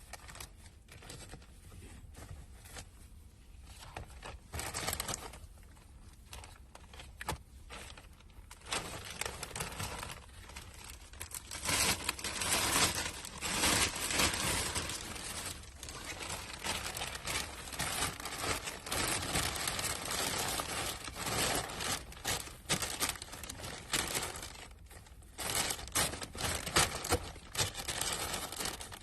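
Plastic bag crinkling and rustling in irregular bursts as it is handled, fainter at first and louder and busier from about a third of the way in.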